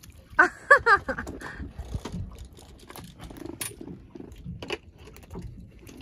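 A short, high-pitched cry of three wavering notes about half a second in, then scattered clicks and knocks as a freshly caught fish is handled and taken off a multi-hook line.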